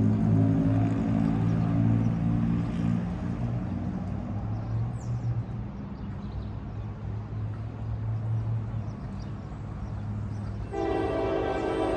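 Diesel locomotive running with a steady low drone, then the train's air horn starts sounding near the end and holds.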